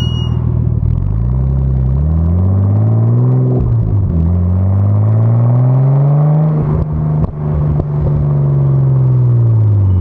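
Nissan Skyline R33's RB25DET turbocharged straight-six exhaust, heard right at the tailpipe, pulling hard through the gears. The revs climb, drop at a gear change about four seconds in, and climb again. On lift-off around seven seconds in there is a short burst of sharp pops and crackles, then the note settles and falls away near the end.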